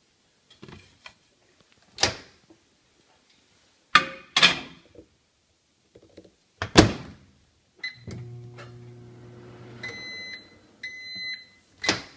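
Microwave oven in use: a few sharp clunks as a metal tray goes in and the door shuts, a short beep, the oven running with a steady hum for about two seconds, then two longer beeps as it finishes and a clunk of the door being opened near the end.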